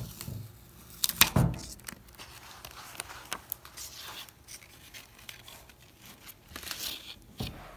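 Paper sticky notes being pulled off and crumpled by hand: irregular rustling and crinkling with sharp crackles, loudest a little over a second in.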